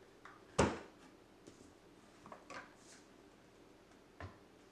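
Handling knocks from a cup turner and its legs: one sharp knock about half a second in, a few light clicks, and a duller thud near the end as it is moved and set down on the table.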